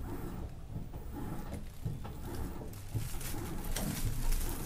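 A dove cooing low in the background, with a few faint clicks of a spoon against a bowl near the end.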